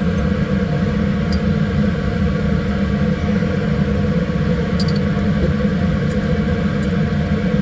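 Laminar flow cabinet's blower running with a steady hum. A few light clicks come from forceps and glassware being handled.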